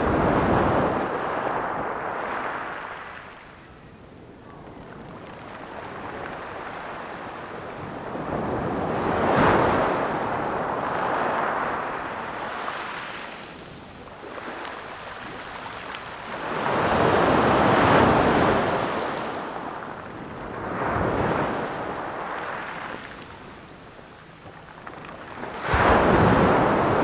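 Small waves breaking and washing up a pebble beach. Each comes as a hissing surge that swells and fades over a few seconds, about every five to nine seconds.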